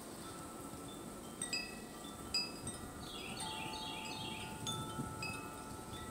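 Wind chimes ringing: several clear metallic tones struck at uneven moments that ring on and overlap, with a quick run of high notes near the middle.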